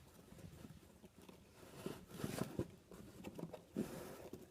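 Faint handling noises: soft knocks and rustles, with a small cluster about two seconds in and another near the end.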